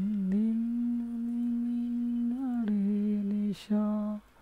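A person humming one long, steady held note. The pitch rises slightly and then drops a little about two and a half seconds in, and after a brief break there is a shorter hum near the end.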